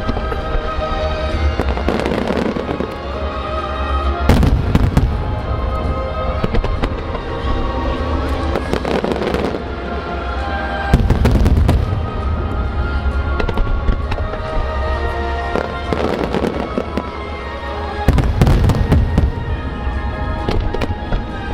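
Aerial fireworks bursting in dense volleys, loudest about four, eleven and eighteen seconds in, with music playing alongside.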